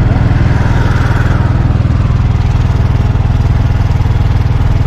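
Auto-rickshaw's single-cylinder engine running steadily on the move, heard from inside the open cabin, with a fast, even pulse of firing strokes.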